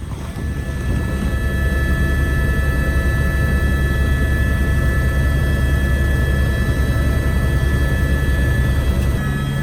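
Helicopter running in flight: a steady deep rumble with several steady high whining tones over it.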